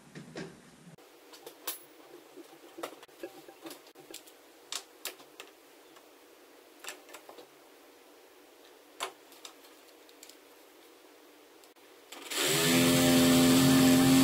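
A series of light clicks and taps from handling tools and parts, then about twelve seconds in a cordless power drill starts and runs steadily at constant speed, loud against the rest, while a fitting is drilled or screwed into the bait board.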